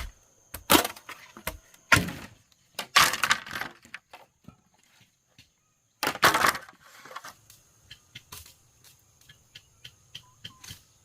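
Bamboo being split and worked with a blade: a few sharp cracking knocks and two longer splintering rips, then a run of light clicks and snips.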